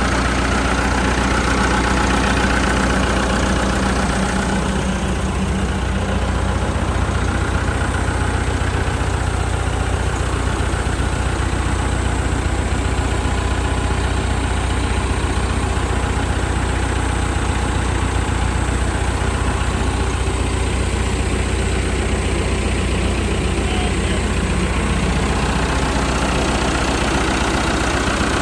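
Massey Ferguson tractor engine idling steadily at an even, unchanging speed.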